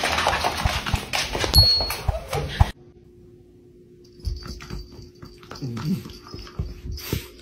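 A loud scuffling noise with knocks cuts off suddenly about three seconds in. A dog then snores softly.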